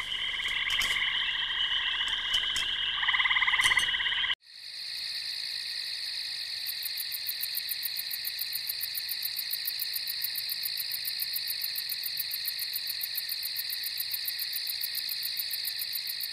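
A chorus of frogs calling with pulsed trills for about four seconds, then after an abrupt cut a steady, high-pitched insect chirring with a fast, even pulse, like crickets.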